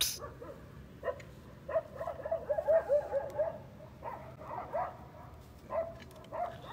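Dog-like yaps and barks: one about a second in, a fast run of short yaps over the next couple of seconds, then a few scattered ones near the end.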